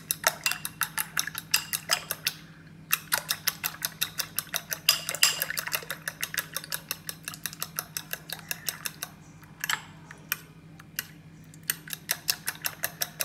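Metal fork beating eggs in a ceramic bowl: quick, rhythmic clinking of the tines against the bowl, several strikes a second. There is a short pause about two and a half seconds in, and the strokes thin out near the end.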